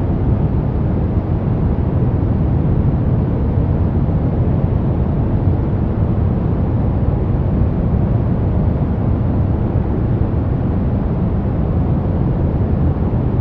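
Steady synthetic brown noise: an even, deep rushing hiss, strongest in the bass and falling away toward the treble, with no change in level.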